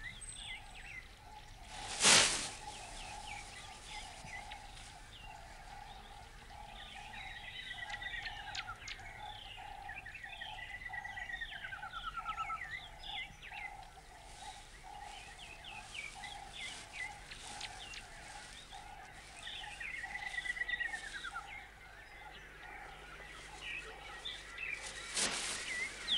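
Birds calling in a natural ambience: a steady note repeated about twice a second, a falling trilled whistle every few seconds, and many short chirps. A short, loud burst of noise comes about two seconds in and another near the end.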